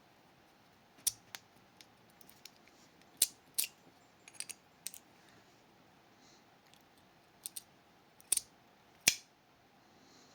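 Small metal parts of a Fichet 484 lever sidebar lock clicking and tapping as the lock is taken apart: irregular sharp clicks, the loudest about three and nine seconds in.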